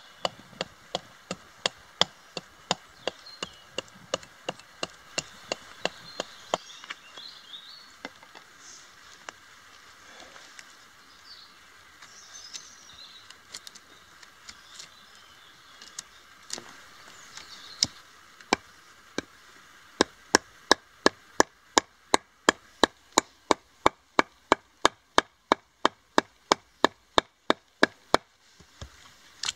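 A blade chopping into wood in a steady rhythm of sharp knocks, about two to three strokes a second. The strokes thin out in the middle and return louder and very even near the end. Faint high chirps sound in between.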